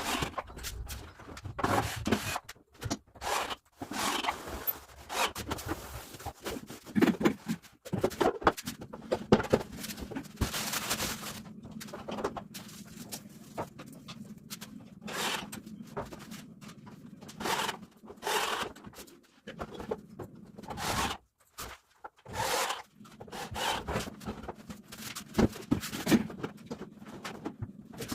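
Irregular knocks, scrapes and rustling from handling parts while assembling a bathroom sink vanity cabinet. A faint steady low hum runs underneath from about nine seconds in.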